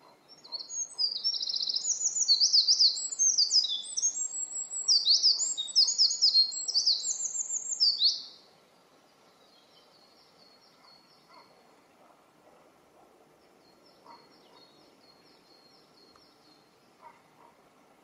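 Eurasian wren singing one long song of rapid trills and high notes for about eight seconds, then stopping abruptly. A fainter, more distant bird song follows twice.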